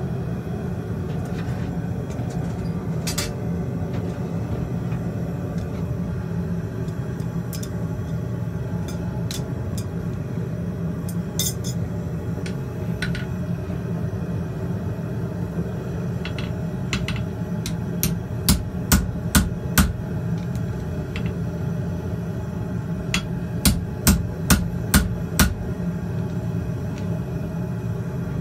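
Farrier's hammer striking a red-hot steel horseshoe on an anvil to shape it, in two quick runs of about five and six ringing blows, with lighter clinks of the shoe and tongs before them. Under it a gas forge runs with a steady rumble.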